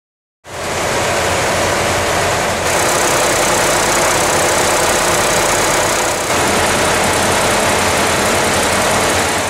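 A river ferry's diesel engine running loud and steady, heard close up in the engine room beside its exposed valve gear and turning shaft. It starts suddenly about half a second in and begins fading out near the end.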